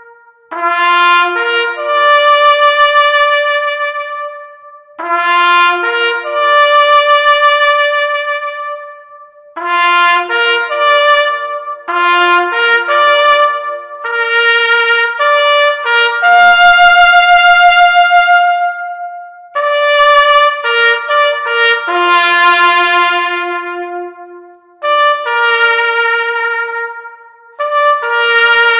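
Solo trumpet playing a slow call of long held notes on a few pitches, in phrases of a few seconds with short breaks between them.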